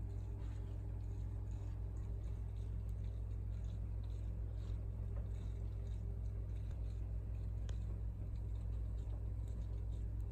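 Steady low hum of running aquarium equipment, with faint scattered ticks and bubbling from the air stone.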